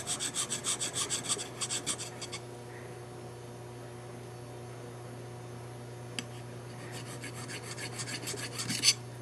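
Flat hand file rasping back and forth across a thin N scale model rail held in a vise, filing the rail flat, in quick, even strokes about five a second. The strokes stop for several seconds in the middle, then start again and build to one louder stroke near the end.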